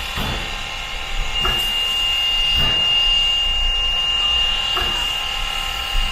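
Steam train running, with a low rumble and a few irregular knocks. A single steady high-pitched tone comes in about a second in and holds for about five seconds.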